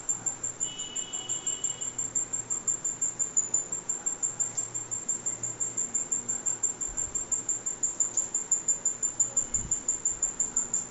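Insect chirping: a fast, even train of short high-pitched chirps that goes on without a break.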